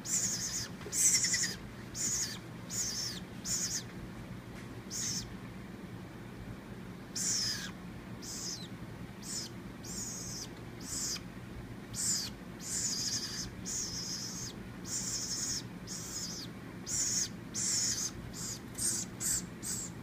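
Hand-raised nestling woodpecker calling over and over, short high calls, some falling in pitch, about one or two a second with a brief pause about a third of the way in: begging calls at feeding time.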